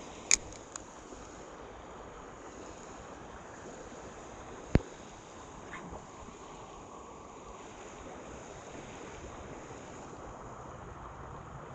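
Steady wind and water noise on an open lake, broken by two sharp clicks: one just after the start and a louder one about five seconds in.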